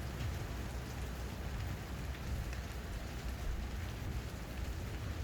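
Steady rain falling, with a low rumble and fine patter of drops hitting surfaces.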